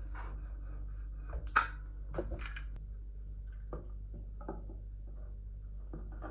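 Scattered light clicks and knocks of small objects being handled, the sharpest about one and a half seconds in, over a steady low hum.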